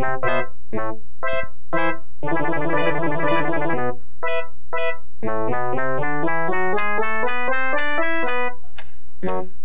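Piano music played in quick runs of notes, with a dense rapid flurry of notes about two seconds in and climbing runs in the second half.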